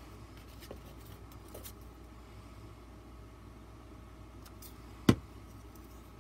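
Faint paper rustling and light handling clicks, then one sharp knock about five seconds in as a plastic glue bottle is set down on the tabletop, over a faint steady hum.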